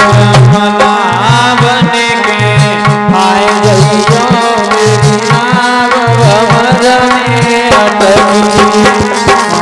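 Live Indian devotional folk music: a harmonium sounding a steady chord and melody over a hand drum playing a regular rhythm of deep bass strokes.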